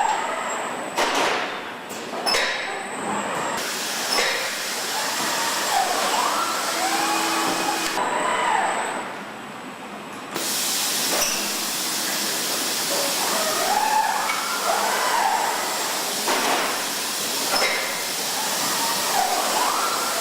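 Car assembly line noise: a steady hiss of machinery with scattered knocks and clanks, and faint voices in the background.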